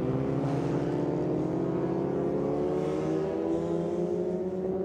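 Historic Formula Ford race cars' 1600 cc Ford Kent four-cylinder engines accelerating down a straight, their pitch rising steadily as they pull through the gears.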